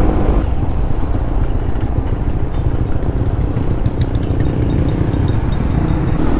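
Honda CB150X's single-cylinder engine running at low speed in traffic, heard from the rider's position with heavy wind and road rumble. A faint rapid high ticking comes in during the second half.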